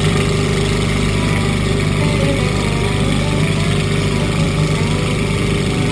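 Fournier RF-4D motorglider's single piston engine and propeller running with a steady, unchanging drone while the aircraft taxis on the ground.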